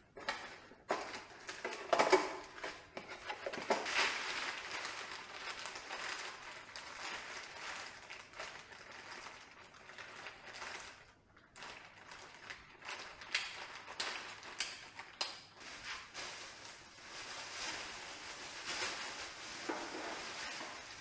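Cardboard and plastic packaging rustling and crinkling as parts are unpacked from a box, with irregular crackles and small knocks, the loudest about two seconds in.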